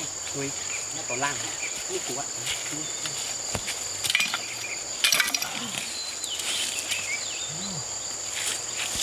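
Steady high-pitched drone of insects in the riverside trees, with a few sharp scraping strikes of a digging blade into riverbank gravel about four and five seconds in.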